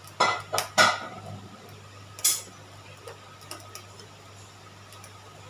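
Metal kitchen utensil clinking against the pressure cooker and the plate it holds: three quick knocks in the first second, another about two seconds in, then a few faint ticks.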